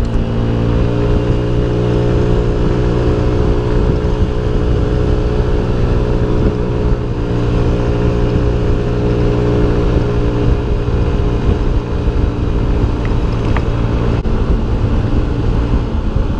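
2022 Honda Ruckus scooter's 49 cc four-stroke single-cylinder engine running at a steady cruise while riding, a constant drone with little change in pitch, over road and wind noise.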